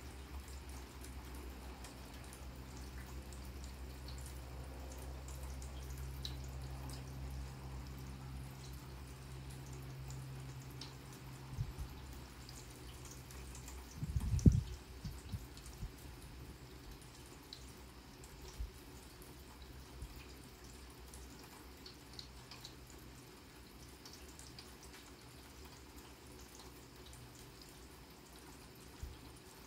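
Light rain falling on grass, with scattered drips ticking. A low hum fades out about a third of the way in, and two dull low thumps come near the middle, the second the louder.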